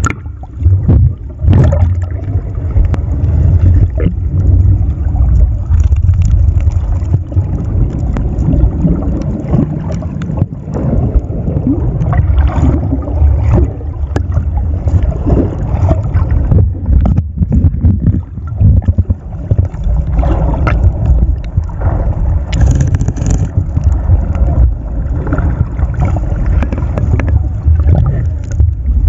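Muffled underwater rumble of water moving against a camera's waterproof housing, with frequent short knocks and bumps as the camera is handled.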